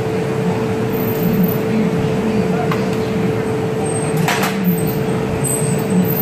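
Steady roar of a glassblowing furnace and its blowers, with a constant hum under it. A brief sharp noise about four seconds in.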